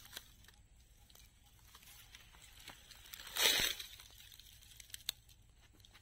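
Close rustling of plants being handled, with one louder rustle about halfway through and scattered light clicks.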